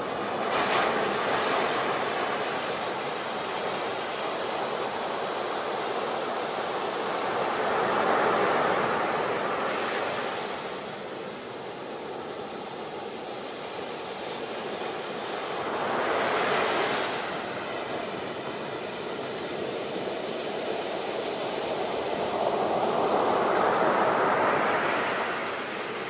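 Ocean surf breaking in a continuous wash, swelling into a louder crash about every eight seconds, four times.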